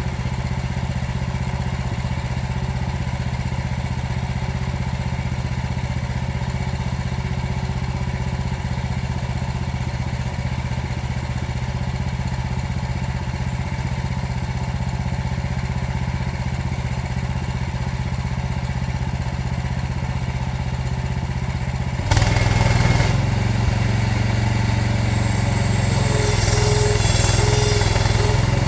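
Portable bandsaw sawmill's small gas engine running steadily. Near the end it suddenly gets louder and rougher.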